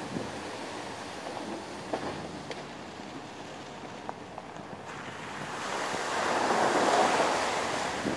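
Wind rushing over a microphone on the roof of a moving vehicle, with a few light ticks; the rush swells louder from about five seconds in, peaks near seven seconds, then eases.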